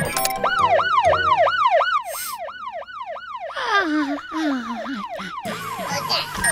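Animated-cartoon emergency-vehicle siren in a fast yelp, rising and falling about three times a second. It drops in level after about two seconds, and a lower tone steps downward underneath near the middle.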